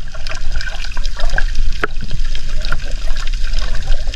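Underwater sound picked up by an action camera's submerged housing: a steady low water rumble with scattered sharp clicks and crackles.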